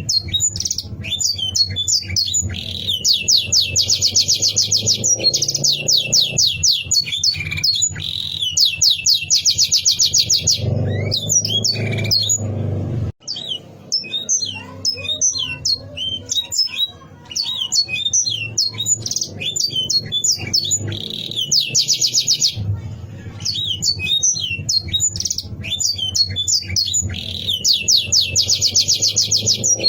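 Domestic canary singing: quick chirps and whistled notes broken up by long, fast trills of rapidly repeated notes, over a low steady background rumble.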